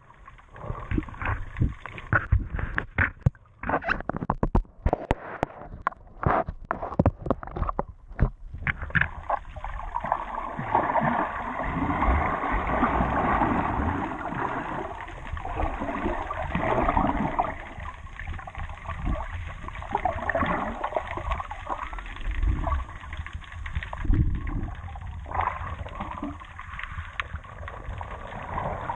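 Sea water splashing and gurgling. A run of sharp splashes comes over the first eight seconds or so, then a steady rush of moving water.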